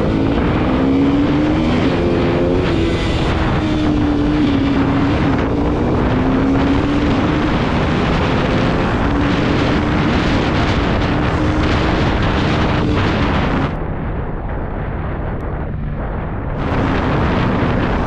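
KTM Duke 200's single-cylinder engine running under way, its note rising and falling with the throttle, with heavy wind rush on the microphone. About three quarters of the way through the sound drops and turns muffled for about three seconds before coming back.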